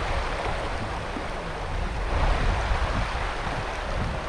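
Shallow river running steadily over a stony bed, with gusty wind rumbling on the microphone.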